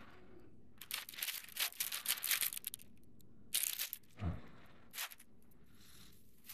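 Plastic bagging and foil-lined insulated packaging crinkling and rustling in irregular bursts as it is handled, with a soft low thump a little past the middle.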